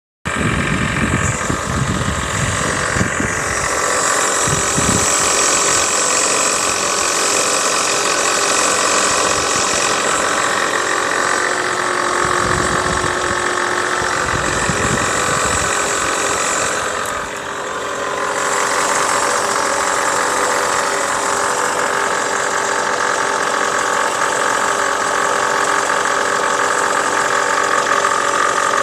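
Chevrolet Lacetti engine running steadily, with an unwanted extra noise that the owner is trying to track down.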